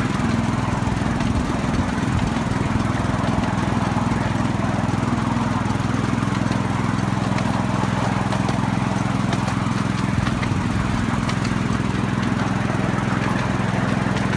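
Small engine of a 7¼ inch gauge miniature railway locomotive running at a steady pace as the train travels along the track, with a few light clicks.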